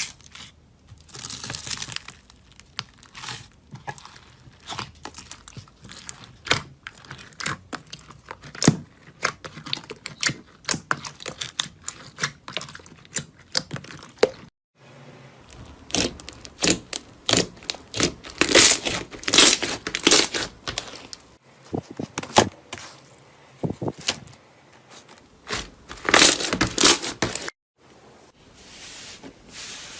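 Slime being squeezed and stretched by hand, making dense crackling pops and sharp clicks. It grows busier and louder in the second half, with brief silent breaks.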